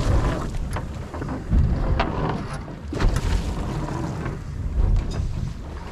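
Gusty wind buffeting the microphone over the sea washing against the side of a boat, with a few sharp knocks about two and three seconds in.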